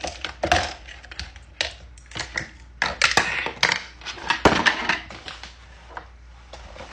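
Plastic parts of an iced coffee maker clicking, knocking and scraping as the filter is fitted back in: irregular sharp clicks with rubbing between them, busiest and loudest about three to five seconds in.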